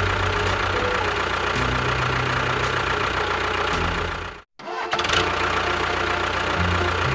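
Small engine running steadily, cutting out abruptly for a split second about four and a half seconds in, then running again.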